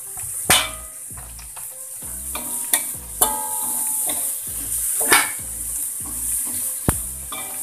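Food sizzling in hot oil in a wok, with a spatula knocking and scraping against the pan several times.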